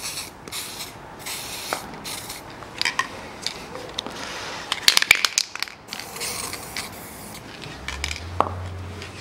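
Aerosol can of copper grease spraying in several short hisses as it is applied to a flange's seating surface, with a few sharp clicks about five seconds in. A faint low hum starts near the end.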